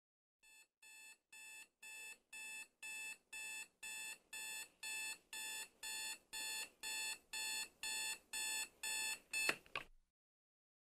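Digital alarm clock beeping about twice a second, growing steadily louder. Near the end a brief louder sweep sounds and the beeping stops.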